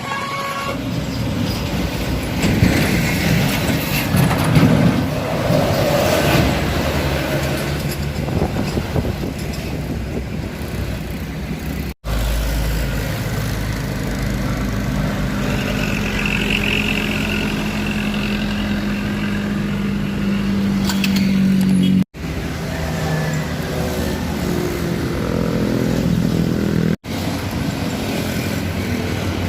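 Truck engine running hard on a steep climb, mixed with road noise, with a steady engine hum for a stretch in the middle. The sound breaks off abruptly three times where clips are cut together.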